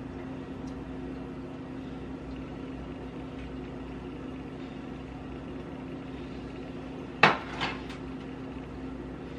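Kitchenware clattering: one sharp knock about seven seconds in, then two lighter knocks, over a steady low hum.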